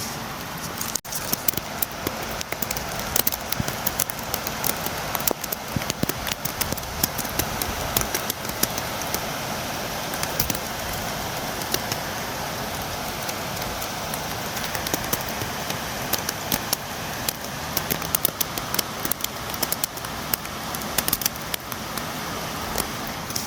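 Steady rain with many sharp drops tapping on a windowpane, a dense constant patter. There is a very brief dropout about a second in.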